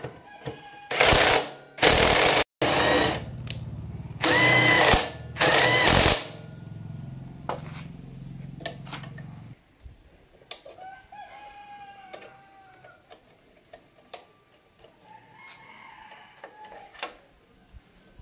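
Cordless impact driver hammering in five short bursts on the rear-wheel axle nut of an electric bike's hub motor, over the first six seconds. Later a rooster crows twice, each call about two seconds long.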